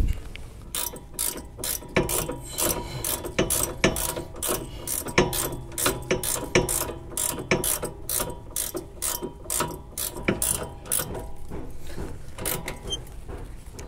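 Ratcheting gear wrench clicking through repeated short strokes, about two or three a second, as it tightens the nut on a sway bar end link's ball stud. The clicking stops about a second before the end, once the nut is tight.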